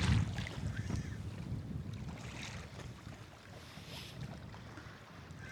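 Wind buffeting the microphone on a small boat at sea: a low rumble, strongest in the first second, then easing off.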